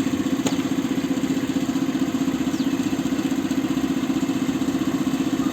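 An engine idling steadily with a rapid, even pulse. There is a single light click about half a second in.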